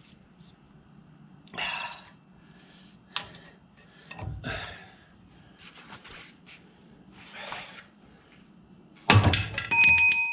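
Steel tools and a hub puller knocking and scraping at a car's rear hub, a string of short clanks. About nine seconds in comes the loudest hit, a metal clang that rings on briefly with a clear metallic tone.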